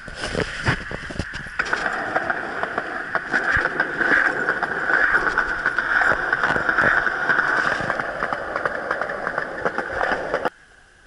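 Skateboard wheels rolling along a concrete sidewalk: a steady rolling noise with frequent small knocks, after a few clatters in the first couple of seconds. It cuts off sharply near the end.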